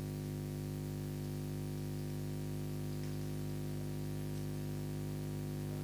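Steady electrical hum with a buzzy edge over faint hiss, unchanging throughout: mains hum picked up by the recording setup.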